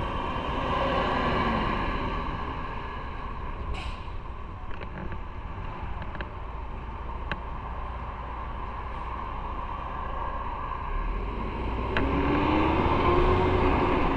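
Motorcycle riding on the road: the engine runs steadily under rushing wind noise, and its pitch rises about twelve seconds in.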